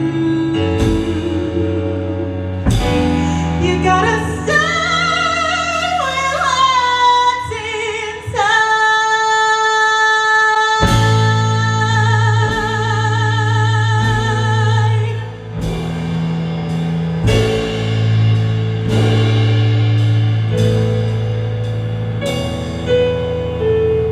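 Gospel music: a singer holds long, wavering notes over steady instrumental backing. The backing drops out for about two seconds near the middle under a long held note, then comes back in.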